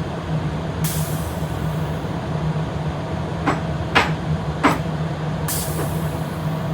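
Pneumatic valves being actuated on compressed air: two short bursts of air exhausting with a hiss, and three sharp clicks between them, over a steady low hum.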